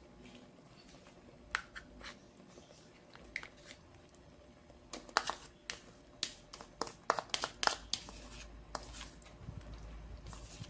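A spoon scraping and tapping as butter is scooped out and knocked into a stainless steel pot of thick chocolate mixture: scattered sharp clicks and short scrapes, thickest in the second half.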